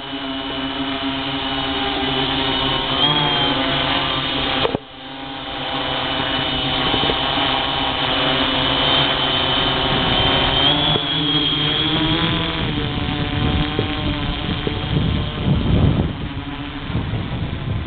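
Six-rotor multicopter's electric motors and propellers buzzing in a stack of steady tones that wobble and shift in pitch as the throttle changes, growing louder over the first seconds as it lifts off and climbs. The sound cuts out for a moment about five seconds in, and a low rumble swells near the end.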